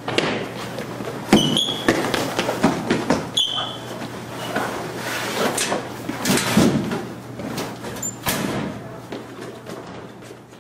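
Hurried footsteps on a hard, polished school-hallway floor, echoing down the corridor, with a couple of short high squeaks in the first few seconds. The steps fade away near the end.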